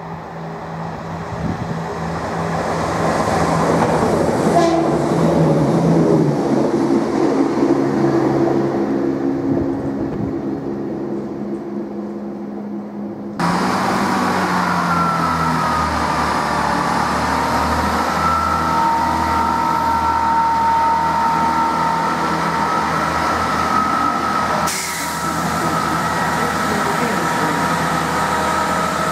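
Diesel multiple-unit trains running through a station: the first approaches with its engine humming, growing louder and then fading. After an abrupt cut about halfway through, a Chiltern Class 165 diesel unit approaches with a steady engine drone and a high whine.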